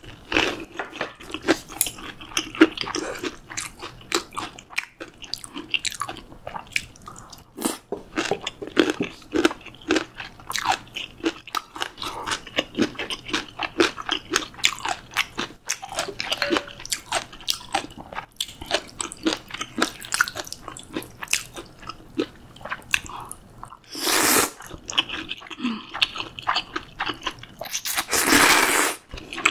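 Close-miked eating sounds: steady chewing and crunching with many small wet clicks, then two long slurps near the end, the last of cold buckwheat soba noodles drawn in from a wooden ladle.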